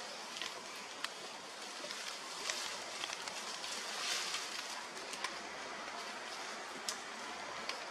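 Dry leaf litter rustling and crackling, with scattered small clicks over a steady outdoor hiss; somewhat louder about four seconds in.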